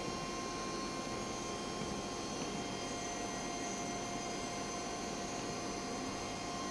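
Steady electrical hum of an idle CNC machine and its control, with a few constant high-pitched tones and no change throughout.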